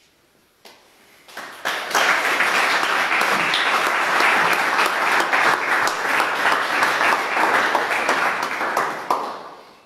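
A small group of people applauding. The applause starts about two seconds in, holds steady, and dies away near the end.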